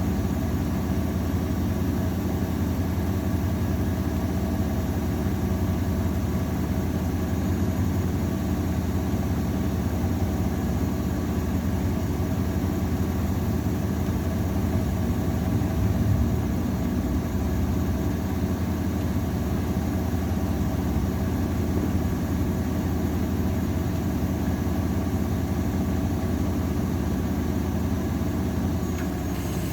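AEG Öko_Lavamat 693 washing machine running its drum motor continuously, a steady mechanical hum; its tone shifts just before the end.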